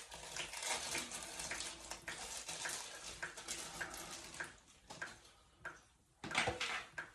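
Water splashing and trickling in a toilet tank, with small clicks and clatter of parts being handled. It goes quiet for a moment, then a short louder splash or clatter comes near the end.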